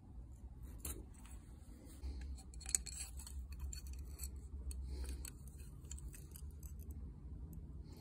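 Scattered light metallic clicks and clinks from handling a steel knife blade and a steel knife-sharpening clamp, over a steady low background rumble.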